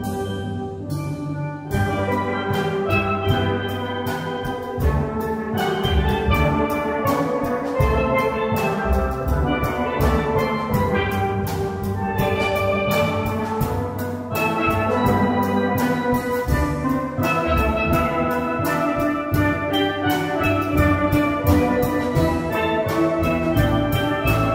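Instrumental band music with no singing: quick ringing struck notes over a bass line and drum beat. The full band fills in about two seconds in.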